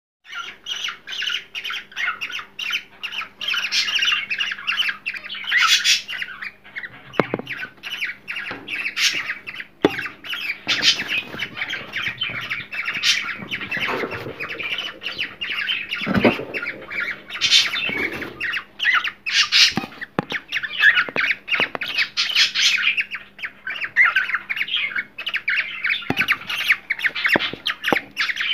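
Cockatiels chattering and squawking in a rapid, unbroken stream of shrill chirps, with a few soft knocks mixed in.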